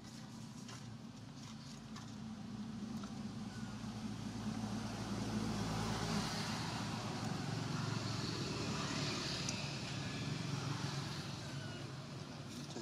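A motor vehicle passing by: engine hum and road noise swell over several seconds, are loudest around the middle, then fade away.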